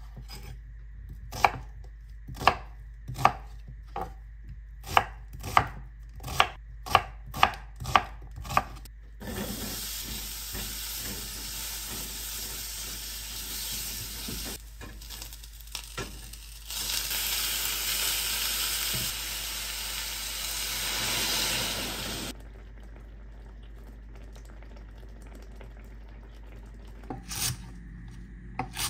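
Chef's knife chopping a peeled onion on a wooden cutting board: about a dozen separate knocks over the first nine seconds. Then diced onion sizzles in a stainless-steel frying pan, louder for about five seconds before it cuts off suddenly. Near the end come a couple of knife chops through chives on the board.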